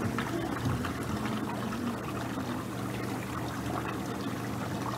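Hot tub water trickling and splashing over a steady low hum.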